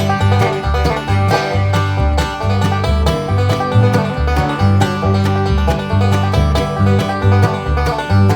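Background music: upbeat banjo-led bluegrass with guitar and a steady bass line.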